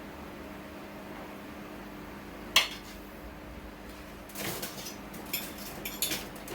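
A utensil clinking against a cooking pot: one sharp clink about two and a half seconds in, then a run of lighter clatters near the end, over a low steady hum.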